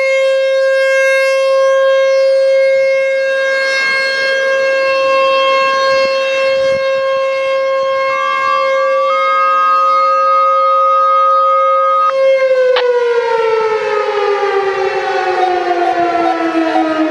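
American Signal Corporation T-128 outdoor warning siren sounding a loud, steady single tone, then winding down with falling pitch from about three-quarters of the way through. A brief higher steady tone sounds over it for a few seconds just before the wind-down.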